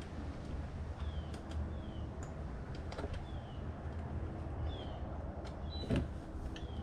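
Light clicks and a knock about six seconds in from handling a PCV breather hose and its hose clamp, over a steady low hum, with short high falling chirps repeating about once a second.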